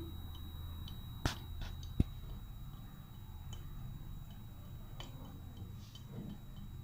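Metal spatula pressing slivered almonds into a slab of milk barfi on a plate: two sharp clicks a second and two seconds in, the second with a short ring, then faint soft taps over a steady low hum.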